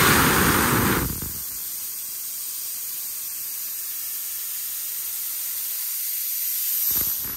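Pressurised nitrogen from a mini-split's refrigerant circuit being vented after a pressure test: a loud rush of gas for about the first second, then a steadier, quieter hiss that swells slightly and cuts off near the end.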